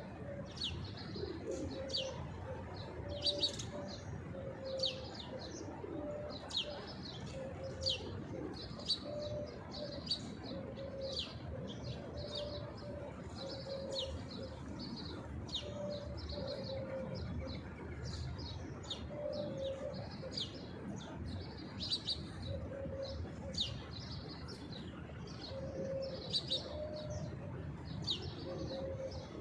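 Many small birds chirping busily in quick, high, falling notes. Under them, pigeons coo in short low notes, repeated every second or so.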